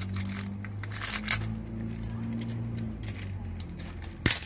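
Small clicks and handling noises over a low steady hum, with one sharp, loud click near the end.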